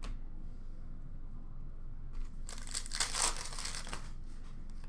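Upper Deck hockey card pack wrapper crinkling and tearing, one rustle of about a second and a half past the middle, the pack being ripped open.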